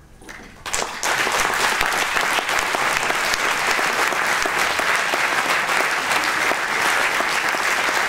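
Audience applauding. The clapping breaks out suddenly under a second in as the last faint notes fade, then holds steady and dense.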